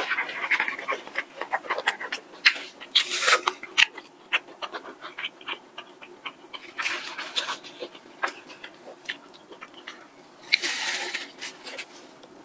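Close-miked eating sounds: chewing with many small wet mouth clicks, and three noisy breaths blown out through pursed lips about 3, 7 and 11 seconds in.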